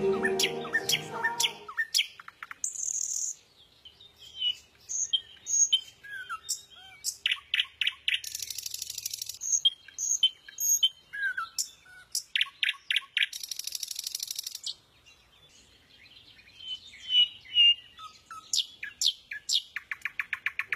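Wild birds singing and calling: high chirps, short whistled notes, and two buzzy trills of about a second each. Music fades out in the first two seconds.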